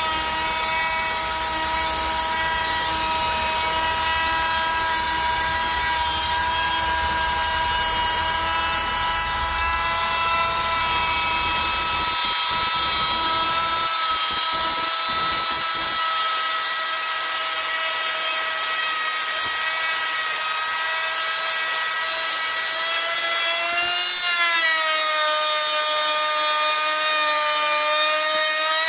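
Cordless 18/20 V trim router running at high speed with a steady high whine, its bit milling a chamfer into a wooden edge. A low rumble under the whine stops about halfway, and near the end the pitch dips briefly under load and recovers.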